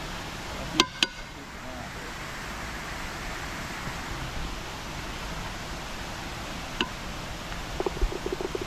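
Steady outdoor noise hiss with two sharp clicks about a second in, another click near the seven-second mark, and a quick run of soft taps near the end.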